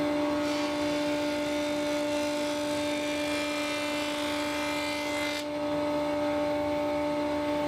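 Felder Hammer K3 table saw running with a dado cutter, cutting a dado in a plywood panel: a steady motor hum under the noise of the cut. The cutting noise drops away about five and a half seconds in, while the saw keeps running.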